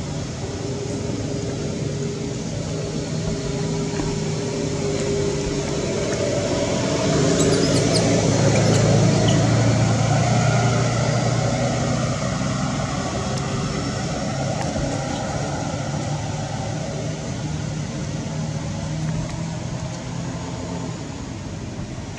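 Engine hum from a passing motor, steady in tone, growing louder to its peak about halfway through and then fading again.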